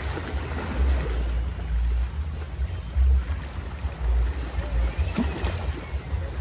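Wind buffeting the microphone: a low, irregular rumble that swells and drops, with faint voices in the background.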